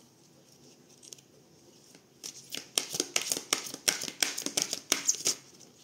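A deck of large oracle cards being shuffled by hand: a quick run of crisp card clicks and flicks starts about two seconds in and lasts about three seconds.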